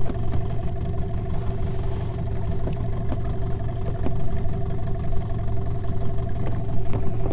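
Outboard motor running at a steady speed, pushing an inflatable boat, heard from aboard: an even drone with a steady whine over it and occasional light knocks.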